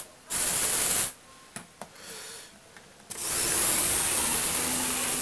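Electric motor and gear train of a motorized Lego Technic 42007 moto cross bike whirring as the bike drives across a wooden floor. It runs in bursts: a short one at the start, another lasting about a second, then a longer run from about three seconds in.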